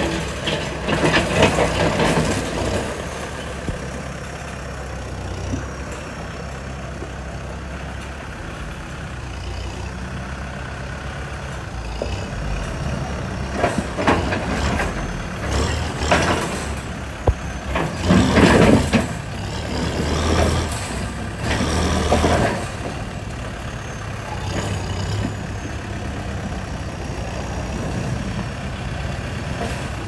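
Heavy diesel truck and earthmoving machinery running steadily, with several loud bursts of noise in the second half, the loudest about two-thirds of the way through.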